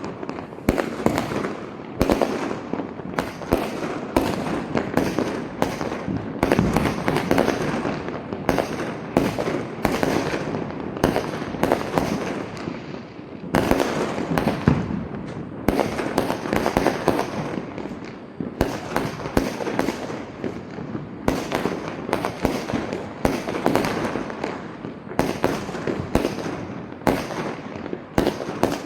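Diwali firecrackers and fireworks going off without a break, with many sharp bangs and crackles overlapping one another.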